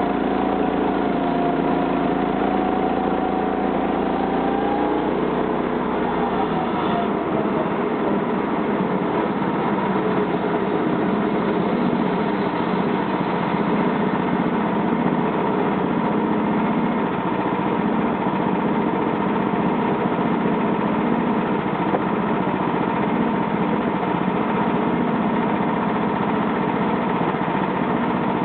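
Homemade band sawmill running under its 13 HP gasoline engine, a steady motor sound. About five to seven seconds in the pitch glides and the tone changes, then the machine runs steadily again.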